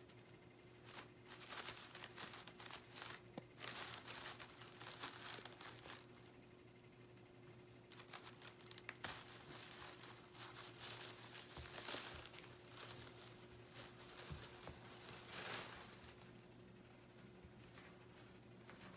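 Brown honeycomb packing paper crinkling and rustling, with some scratchy tearing, as a cat rolls on it and claws at it. It comes in irregular bursts and dies away in the last few seconds.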